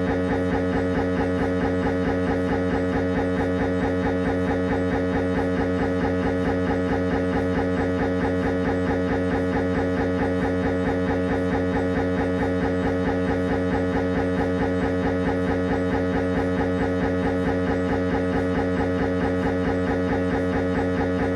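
Siemens Magnetom Avanto MRI scanner's gradient coils buzzing during a head-scan sequence: a steady, pitched drone pulsed in a fast, even rhythm that does not change.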